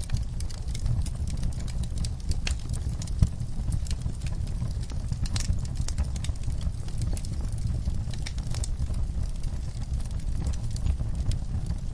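Log fire crackling in a fireplace: irregular sharp pops and snaps over a steady low rumble, with one louder pop about three seconds in.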